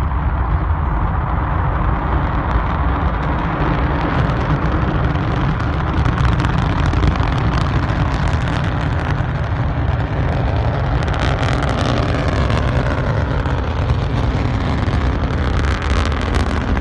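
Long March 2D rocket lifting off and climbing, its four-engine hypergolic first stage giving a loud, continuous rumble. Crackling grows in the noise from about six seconds in as the rocket rises.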